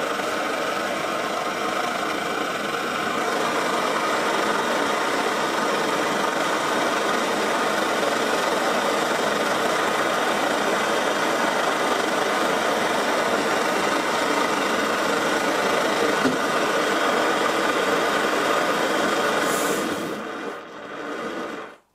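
Vintage Primus 96 paraffin pressure stove, dating from about 1936, burning with a steady roar. Near the end the tank's pressure is released with a brief hiss, and the roar fades and cuts off as the burner dies.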